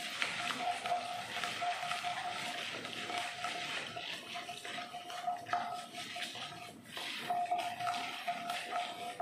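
A wooden spatula stirs and scrapes a tempering of mustard seeds, cumin, peppercorns and dals frying in hot oil in a nonstick pan. The oil sizzles steadily, with many small clicks from the spatula and the spluttering seeds.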